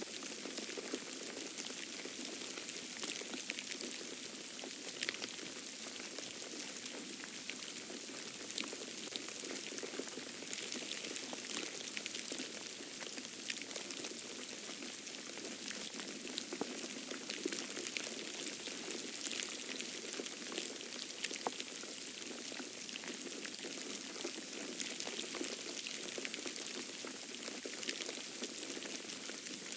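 Falling snow pattering steadily, a continuous hiss dotted with many small irregular ticks.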